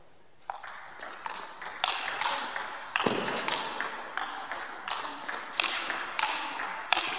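Table tennis rally: the ball clicking sharply off the bats and the table in quick alternation, about three hits a second.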